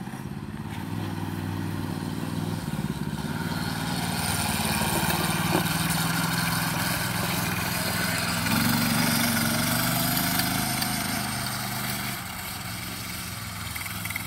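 Small go-kart engine running as the kart drives across a lawn. It grows louder as the kart comes closer, speeds up about two-thirds of the way through, then drops back and fades near the end as the kart moves away.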